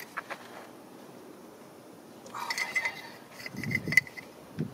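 Metal hand tools clinking and rattling against each other with a short ringing after each hit: a few sharp clicks at the start, then a cluster of clinks in the second half, the loudest about four seconds in.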